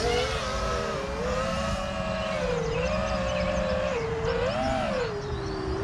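Freestyle FPV quadcopter's brushless motors and propellers whining in flight on a 4S battery. The pitch swoops up and down repeatedly as the throttle is worked, over a low wind rumble.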